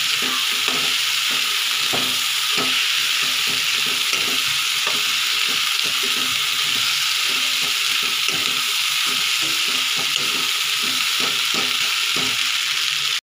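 Egg fried rice sizzling in hot oil in a metal kadhai while a spatula stirs it. A steady sizzle runs under frequent light clicks and scrapes of the spatula against the pan.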